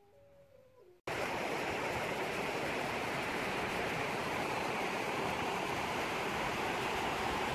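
Munzur River rushing over rocks in shallow rapids: a steady, loud rush of water that starts abruptly about a second in.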